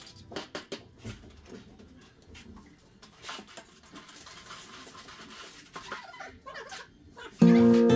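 Faint, scattered clicks and knocks of tools being handled as a long spirit level is laid on a tiled shower curb. Loud music cuts in suddenly near the end.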